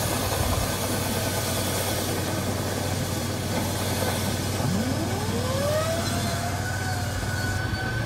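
Dryer vent cleaning equipment running steadily: a hum under a hiss, with a whine that rises about five seconds in and then holds, as lint is cleared out of the vent. The hiss eases near the end.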